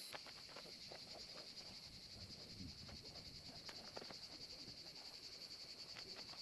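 Faint, steady high-pitched buzzing of cicadas in the olive trees, with a few light scattered knocks.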